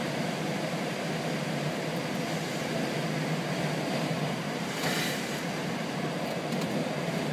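Steady rush of air flowing past the canopy of a glider in flight, briefly louder about five seconds in.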